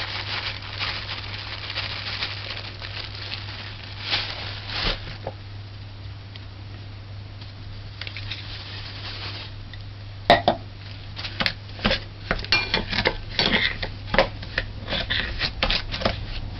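Kitchen utensils and dishes knocking and clinking against a mixing bowl while sugar is measured in, quiet at first and then a quick run of sharp clicks and knocks over the second half. A steady low hum lies underneath.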